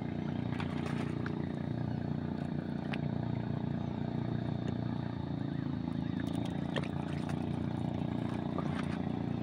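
Small engine of an outrigger fishing boat running at a steady speed under way.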